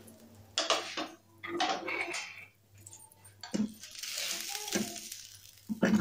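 Metal spatula scraping and knocking against a frying pan as a frying omelette is lifted and turned, with the oil sizzling in between. The sharpest knock comes just at the end.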